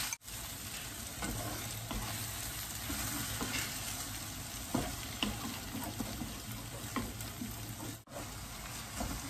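Shrimp and vegetables in curry sauce sizzling in a non-stick frying pan, stirred with a wooden spatula that scrapes and taps against the pan. The sound drops out for an instant just after the start and again near the end.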